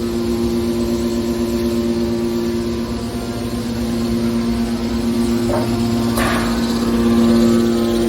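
Scrap metal baler machinery running with a steady hum, with a short burst of noise about six seconds in.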